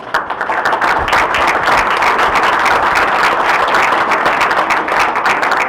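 Audience applauding, many people clapping together; the applause starts suddenly and holds steady throughout.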